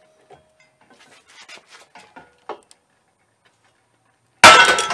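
Faint clicking of a wrench turning a bolt into the end of a generator rotor, then, about four and a half seconds in, one loud sharp bang with metallic ringing as the rotor pops loose from the engine's tapered crankshaft.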